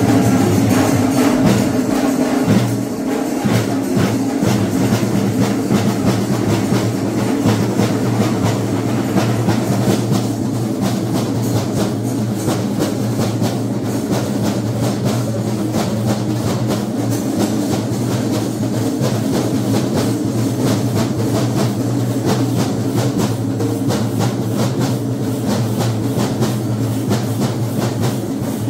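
Festival drum ensemble playing dense, rapid strokes over a steady droning tone.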